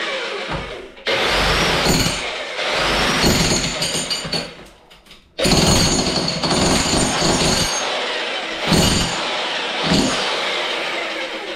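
Handheld electric jackhammer with a flat chisel bit hammering into plaster and brick at a door frame. It runs in long bursts, stopping briefly about a second in and for about a second near the middle before starting up again.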